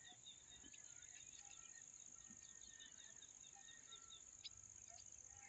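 Faint, steady, high-pitched drone of crickets or similar insects, with scattered short bird chirps and a single sharp click about four and a half seconds in.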